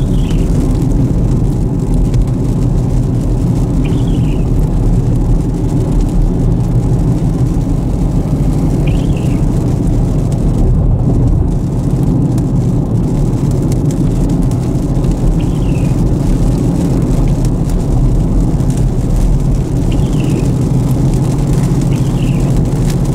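Steady road and engine noise of a car being driven, with a short high squeak every four to six seconds.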